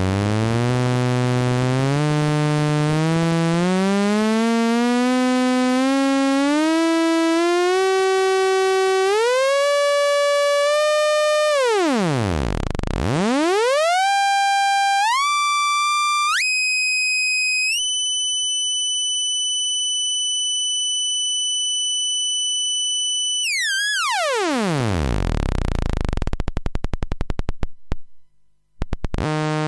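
Doepfer A-141-2 VCADSR envelope cycling fast enough to be heard as an oscillator: a buzzy synth tone whose pitch climbs in steps as the time knobs are turned. It dips sharply, climbs to a thin, very high held tone, then falls away into a rough crackling buzz that cuts out briefly near the end before a low buzz returns.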